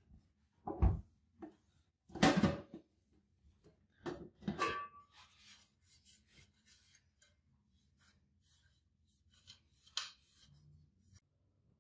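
A few short scrapes and clicks of a metal watch case being handled and turned over in the fingers, the loudest a little over two seconds in.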